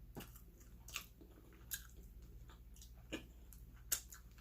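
Close-miked chewing with wet mouth clicks and smacks, five or so short sharp ones about a second apart.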